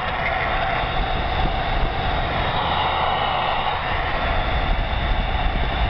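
Steady road and engine noise inside a vehicle's cab cruising at highway speed.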